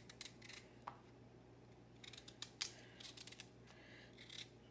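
Faint, irregular slicing and scraping of a small kitchen knife cutting through a raw yam held in the hand, over a low steady hum.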